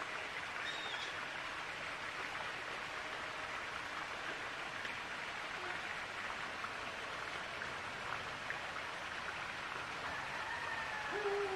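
A steady rushing hiss of outdoor noise, with a couple of short falling tones near the end.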